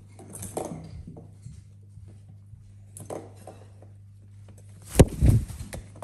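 Plastic clattering of a cat track-ball toy being batted by kittens: a few short rattles, then a sharp knock and a burst of rattling about five seconds in, the loudest moment. A steady low hum runs underneath.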